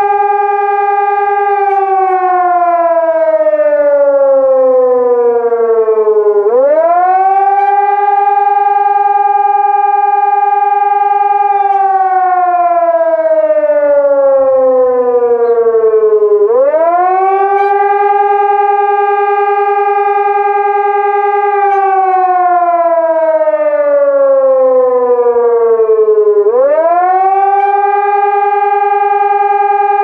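Electronic civil-defence siren with four horn loudspeakers sounding a loud wailing tone. Each cycle holds a steady high pitch for about five seconds, glides down over about five seconds, then sweeps sharply back up, three times over. It is a test of the German one-minute warning signal (Signal 3, warning of a danger: switch on the radio and listen for announcements).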